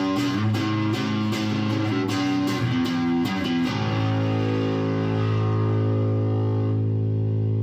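Restored 1970s vintage electric bass guitar being played: a quick run of plucked notes, then a single note left to ring out from about four seconds in.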